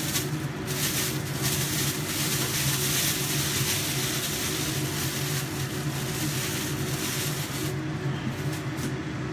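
A thin plastic bag rustling and crinkling as minced pork is unwrapped from it into a metal bowl; the rustling stops about eight seconds in. Under it runs a steady low mechanical hum.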